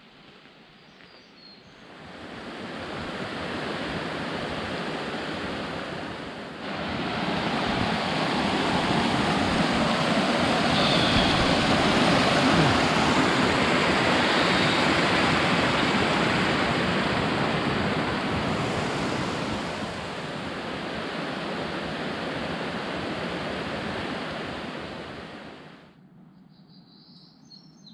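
Small mountain creek rushing over rocks, a steady rush of water that swells in about two seconds in, grows louder after about seven seconds and fades out near the end.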